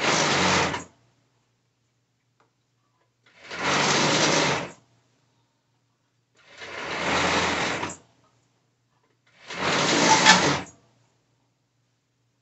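Juki serger (overlocker) stitching in four short runs of about a second each, a few seconds apart, with quiet between, as it serges the bottom edge of a skirt.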